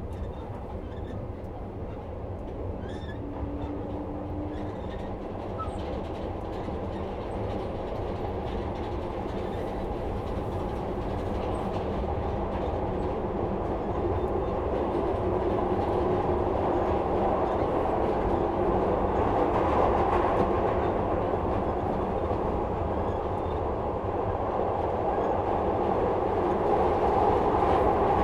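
Inside a Metro-Cammell 2nd-generation Glasgow Subway car, the train runs with a steady rumble and clatter of wheels on rail that grows steadily louder. A brief steady tone sounds a few seconds in.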